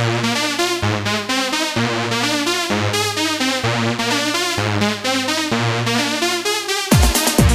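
Eurodance music: a synthesizer keyboard riff over short repeated bass notes, played without the kick drum, a breakdown. The drum beat comes back near the end.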